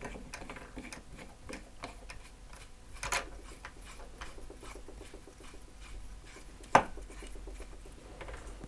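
Small clicks, taps and rubbing of plastic and aluminium rod-holder parts being handled and fitted together: a Scotty rod holder base going onto an NRS Clampit mount. A sharper click comes about three seconds in and a louder single click near seven seconds.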